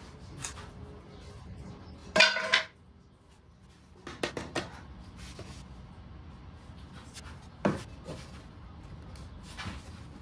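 Wooden boards and trim being handled: a few sharp knocks and clatters of wood, the loudest about two seconds in, lighter taps around four seconds and again near eight seconds, over a faint steady hum.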